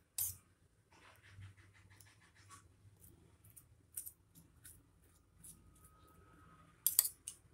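Metal spoon spreading chutney over a slice of bread on a stone counter: soft back-and-forth scraping strokes, quick and even early on, with small clicks and a sharper clatter of the spoon about seven seconds in.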